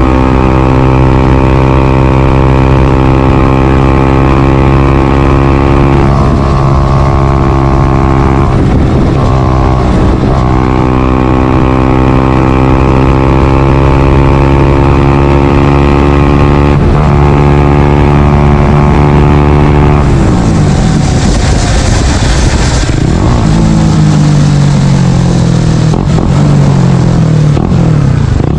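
Small single-cylinder four-stroke motorcycle engine, a Honda CBR125R/150R, running through a Yoshimura R77 full-system exhaust. It holds a steady high-revving note with a few brief dips in pitch. About twenty seconds in, the revs drop and then fall off in several steps, as in downshifting.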